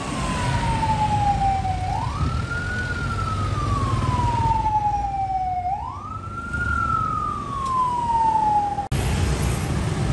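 An emergency vehicle's siren wailing over steady street traffic: each cycle climbs quickly, then slides slowly down, repeating about every four seconds. The siren cuts off abruptly near the end, leaving the traffic noise.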